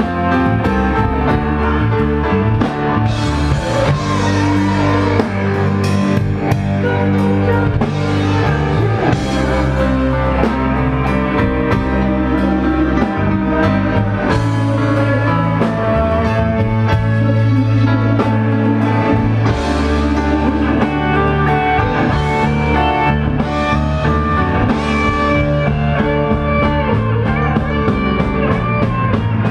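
Live rock band playing an instrumental passage, with electric guitar, bass and drum kit.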